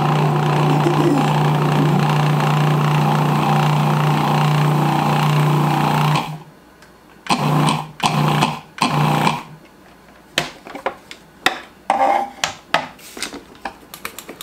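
Food processor motor running steadily for about six seconds, cutting shortening into flour until the mix is crumbly like cornmeal, then two short pulses. After that come a string of clicks and knocks as the plastic bowl is handled and lifted off the base.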